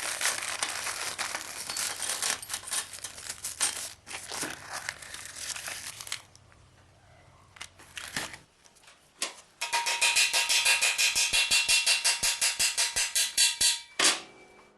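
Crinkling and rustling handling noise with many small clicks, then, after a short lull, a fast, even run of sharp clicks that stops suddenly near the end.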